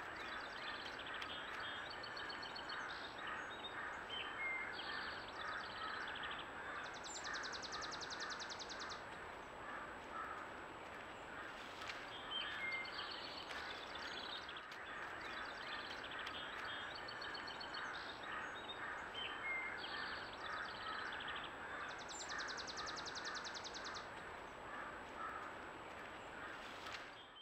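Birds calling and singing in a dense dawn chorus, many short repeated notes overlapping, with occasional rapid higher trills.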